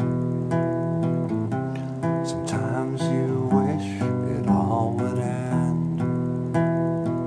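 Acoustic guitar strummed in a steady rhythm, about a strum a second, with a man's voice singing a wavering line over it through the middle.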